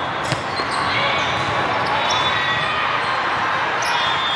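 A volleyball served with a sharp hand slap about a third of a second in, then volleyball contacts and bounces over the steady din of a large, crowded sports hall.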